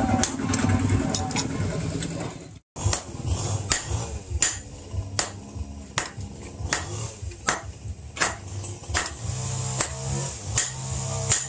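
Blacksmith's hammer striking red-hot steel on an anvil in a steady run of sharp blows, about one or two a second, while forging an axe blank. The blows break off for a moment about two and a half seconds in.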